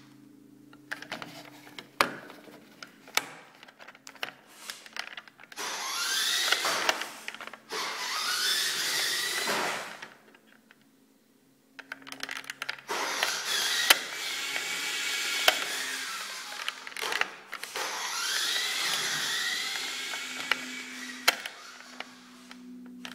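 Small electric drive motors of a remote-controlled floor vehicle whining in runs of a few seconds, the pitch rising as they spin up, with scattered clicks. A pause of about two seconds comes about ten seconds in.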